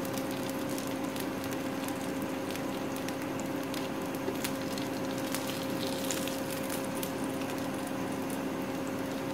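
Uttapam batter sizzling and crackling steadily in a nonstick frying pan over full heat as its first side cooks, with a steady low hum underneath.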